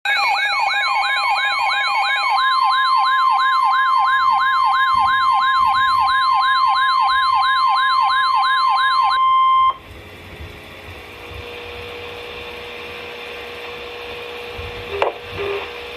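Weather radio alert: the steady 1050 Hz warning alarm tone, under a siren that sweeps up in pitch about two and a half times a second. Both cut off about nine and a half seconds in, leaving quieter radio hiss with a faint hum and a couple of clicks near the end.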